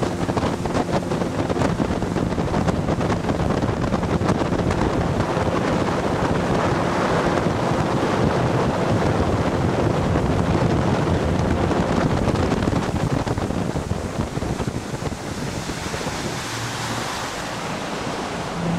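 Motorboat under way: water rushing past the hull and wind buffeting the microphone, over the low steady hum of the boat's engine. The rush eases a little near the end.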